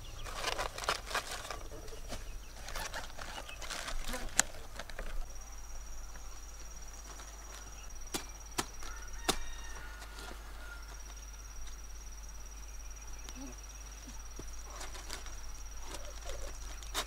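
Crisp rustling and crackling of large cabbage leaves as the heads are handled and loaded into a woven basket for the first few seconds. Then an insect's steady high trill carries on, broken off once briefly, with a few sharp clicks and more leaf rustling near the end.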